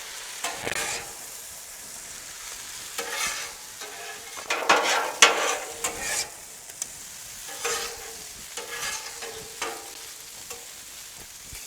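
Chicken fried rice sizzling on a Blackstone flat-top griddle, with irregular scraping strokes as it is stirred and turned across the hot steel to mix in the sauce.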